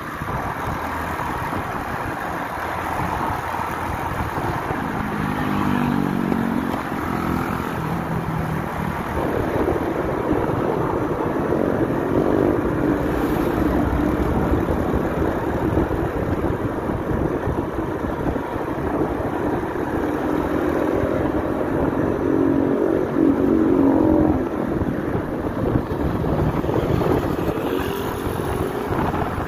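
Motorcycle engine running at road speed over a steady rush of wind and road noise; the engine note rises and falls a few times as the rider speeds up and eases off.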